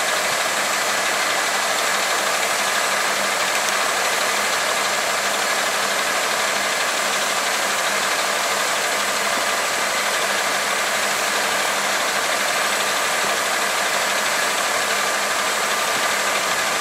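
Diesel engine of a 1980 Freightliner dump truck running steadily at an even speed while the hydraulic hoist lowers the dump bed.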